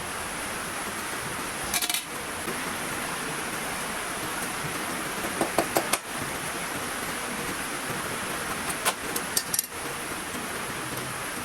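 Steady heavy rain, with three short bursts of clinking dishes and utensils, about two, six and nine seconds in.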